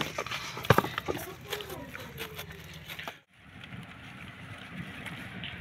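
Faint, indistinct talk with scattered sharp knocks and clicks, one louder knock about a second in, and a brief dropout about three seconds in.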